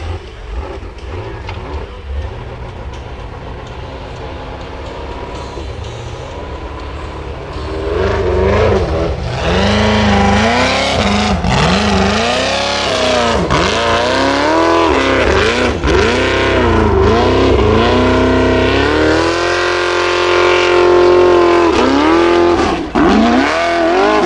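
Formula offroad buggy's engine revving hard under load as it climbs a steep dirt slope, its pitch swinging up and down again and again. It is held high for a couple of seconds, then drops near the end. For about the first third only a lower rumble is heard, before the engine comes up loud.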